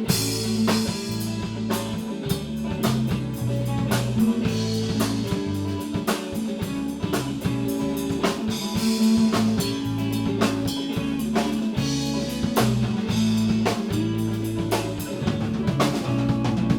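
Band playing an instrumental passage of a song: drum kit keeping a steady beat under bass and guitar, with no vocals.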